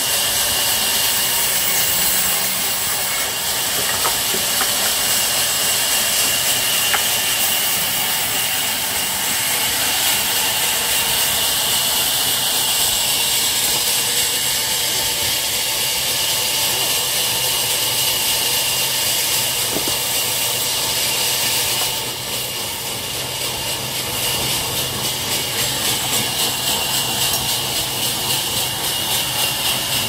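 Sawmill band saw running and cutting timber with a loud, steady high hiss. It dips briefly about two-thirds of the way through and comes back with a light, even pulsing.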